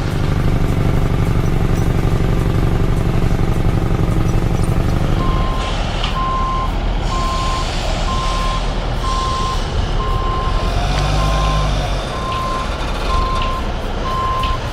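Heavy diesel machine running with a deep, dense engine sound. From about five seconds in, its reversing alarm beeps steadily, about once a second, over the engine.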